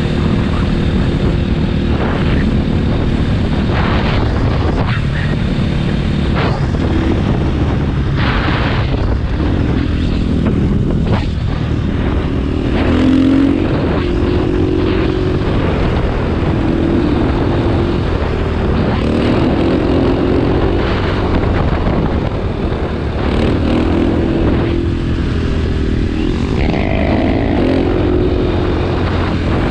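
KTM 500 dirt bike's single-cylinder four-stroke engine running under way, its pitch climbing and dropping several times as the throttle opens and closes, with heavy wind noise on the microphone.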